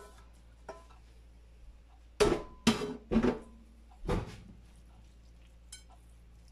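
A nonstick frying pan and wooden spatula knocking as the last of the cooked ground beef is knocked out into a glass baking dish: four sharp knocks over about two seconds, starting a little after two seconds in, then faint scraping as the meat is spread.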